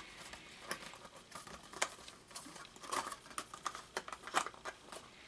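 Faint, irregular plastic clicks and clacks of a MoYu Redi Cube twisty puzzle being handled and turned.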